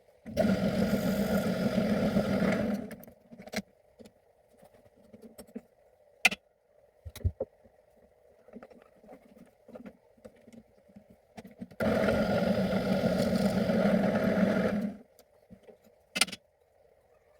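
A small motor runs twice, for about two and a half and three seconds, with scattered clicks and knocks between the runs.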